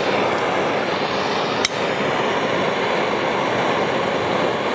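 Small handheld propane torches burning with a steady rushing hiss, with a single sharp click about one and a half seconds in as the second torch is lit.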